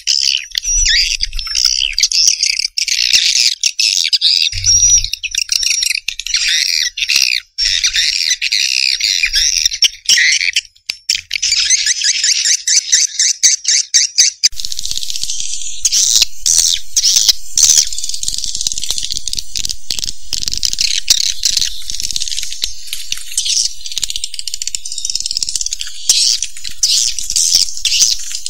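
Swiftlets twittering: a dense, rapid chatter of high chirps, a swiftlet call recording of the kind played to attract swiftlets to nest. About halfway through the chatter thickens into a more continuous twitter.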